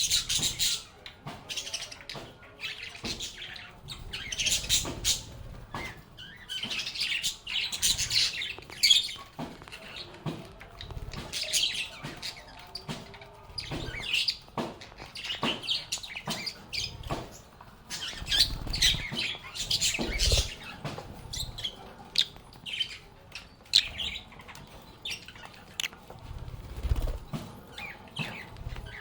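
A flock of pet lovebirds chattering, with many quick, high chirps overlapping continuously and a few soft low thumps.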